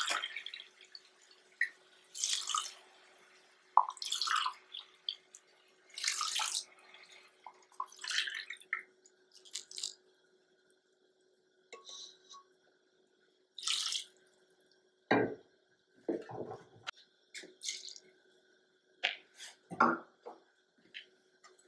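Mutton cooking stock being poured from a pressure cooker into a plastic measuring cup and tipped onto the rice in a second pressure cooker, in about half a dozen short splashing pours with pauses between them. In the last few seconds come several duller knocks of the cookware.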